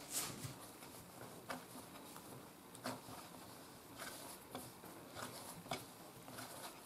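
Bread dough being kneaded by hand on a wooden board in a rubbing motion: faint, irregular soft slaps and rubs of the dough against the wood, about one a second.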